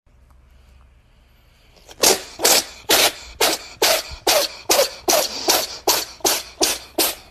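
A person's voice making short, breathy bursts, about two a second, starting about two seconds in and keeping an even rhythm.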